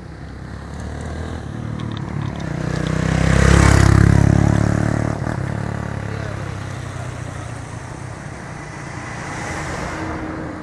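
Motor vehicles passing close on a road bridge. One engine grows louder to a pass-by about four seconds in and then fades away, and a second vehicle passes more quietly near the end.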